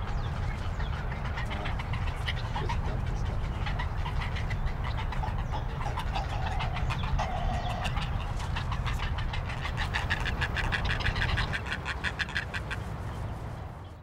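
Outdoor animal calls: a dense chatter of short, rapid calls over a steady low rumble, the calls growing thicker about nine seconds in.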